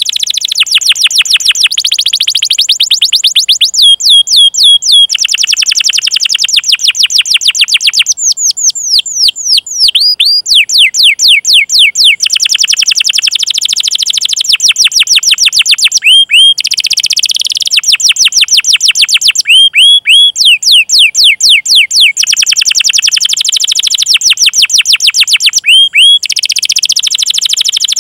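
Domestic canary singing a long, loud song of fast rolling trills, many quick repeated notes a second, broken every few seconds by a few slower sliding 'cuit cuit' chirps.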